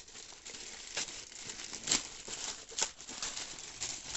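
Plastic courier mailer bag crinkling and rustling as hands work it open, with sharp crackles about one, two and three seconds in.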